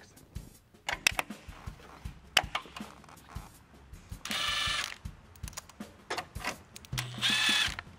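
Cordless drill-driver whining in two short bursts, about halfway through and near the end, as it runs screws into the plastic front support of the grille. Light clicks and knocks of parts and the tool being handled come in between.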